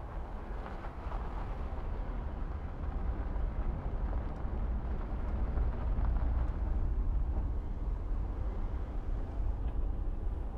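Low rumble of a car engine, growing louder over the first six seconds or so and then holding steady.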